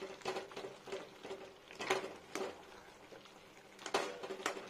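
Flat metal spatula scraping and knocking in a metal pan as it stirs and mashes soft boiled arum and pumpkin pieces in a thick curry: irregular clicks and scrapes, the strongest about two seconds in and again near four seconds, over a faint steady hum.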